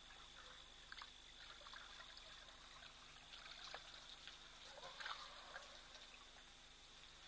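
Faint trickling and pouring of water as an African elephant drinks, drawing water up its trunk and emptying it into its mouth, with a small swell of splashing about five seconds in.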